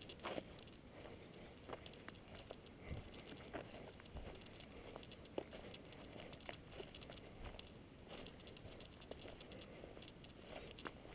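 Faint, irregular footsteps of a hiker walking a dirt and leaf-litter trail, with light crunching and rustling.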